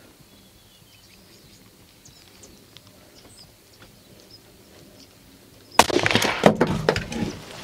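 Faint bird chirps over a quiet field, then about six seconds in a scoped hunting rifle fires one loud shot, followed by a second or so of clattering and rattling.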